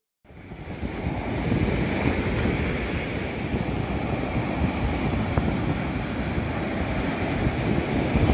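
Rushing wind and surf of a stormy sea, fading in over about a second and then holding steady.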